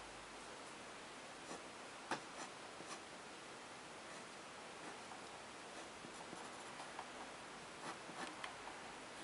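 Fine-tip pen scratching on paper in short drawing strokes: faint scattered scratches and ticks, the sharpest about two seconds in and more frequent in the second half, over a steady faint hiss.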